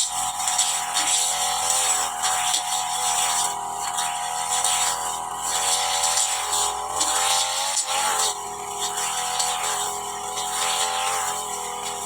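Petrol brush cutter engine running at high revs while cutting grass. Its sound rises and falls regularly, about every second and a half, with the cutting strokes.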